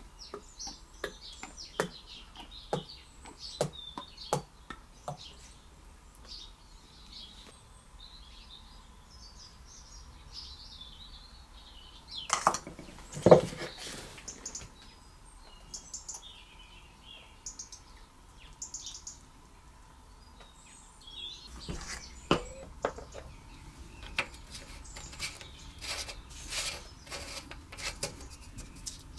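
Workshop handling sounds from work on a small engine: light clicks and knocks of tools and parts, a louder clatter about halfway through, and a run of clicks near the end as a bolt is fitted by hand. Faint bird chirping sounds throughout.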